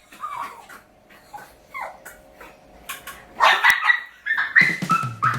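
Pug whining and yipping in short, sliding, high-pitched calls, coming faster in the second half: a hungry dog begging for its breakfast. A few sharp clicks sound among the calls.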